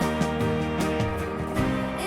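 Background music: soft instrumental with plucked notes changing about every half second.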